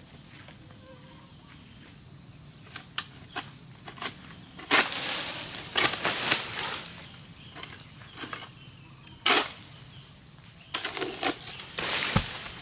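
Egrek (long-pole sickle) cutting an oil palm fruit bunch off the palm: a few knocks, then bursts of scraping and frond rustling as the blade is pulled through the stalk, and a thud about 12 seconds in as the bunch comes down. Insects shrill steadily throughout.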